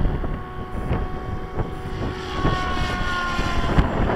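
Electric Goblin 700 remote-control helicopter in flight: a steady whine from its electric motor and rotor, with several pitched tones that dip slightly past the middle.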